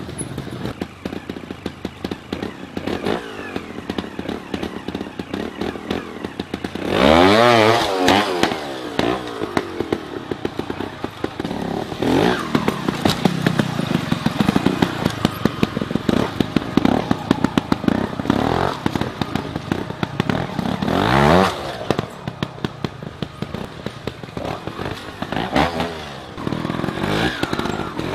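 A trials motorcycle engine ticking over with rapid popping, blipped hard in short revs that rise and fall sharply. The revs come about seven seconds in, again around twenty-one seconds, and twice near the end, as the bike is ridden up and over rocks.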